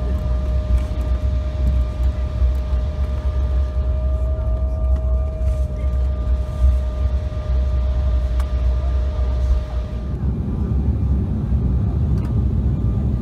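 Cabin noise inside an Embraer E-Jet airliner: a steady deep rumble from the engines and airflow, with a thin steady whine over it. About ten seconds in the whine stops and the rumble grows fuller.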